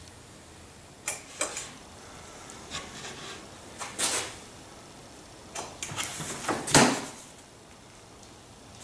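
A sheet of half-inch birch plywood being set down and positioned on a table saw's top: a string of light wooden knocks and scrapes, the loudest about seven seconds in.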